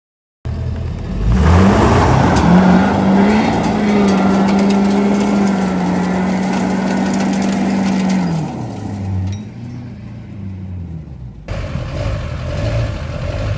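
A vehicle engine revs up sharply, holds high revs steadily for about six seconds, then drops back toward idle. Near the end the sound changes abruptly to a quieter engine running.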